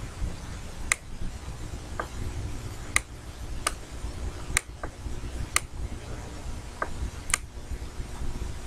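A computer mouse clicking now and then, about half a dozen sharp clicks and a few softer ones at uneven intervals, over a low steady rumble of room noise.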